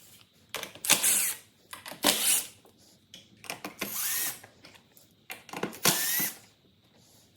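Cordless power drill-driver run in four short bursts of about half a second each, with a motor whine rising in pitch as it spins up: backing out panel screws.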